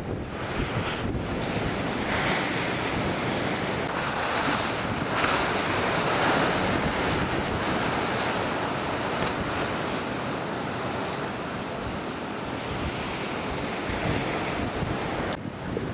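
Ocean surf breaking and washing in, with wind buffeting the microphone; the surf swells loudest a few seconds in.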